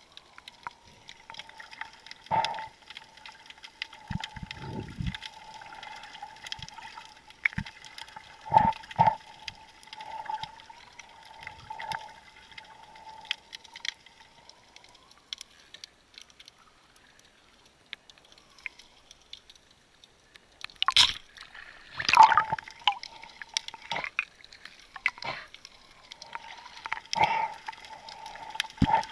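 Underwater water sounds: gurgling and sloshing with scattered clicks and knocks over a faint steady hum, and a cluster of louder bursts about 21 to 23 seconds in.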